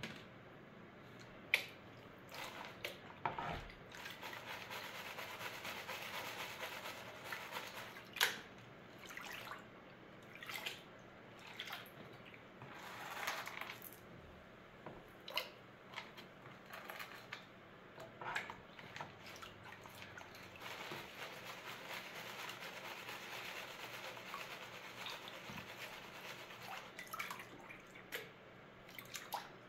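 Water sloshing and splashing as a plastic gold pan of paydirt is worked in a tub of water. There are stretches of steady swishing, broken by sharp splashes and drips as water and material run off the pan's rim.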